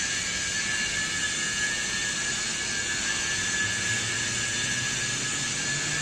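Hydraulic power unit of a 160-ton scrap metal baler running steadily: the electric motor and pump give a constant high whine over a hiss. A lower hum comes in about midway and steps up in pitch near the end.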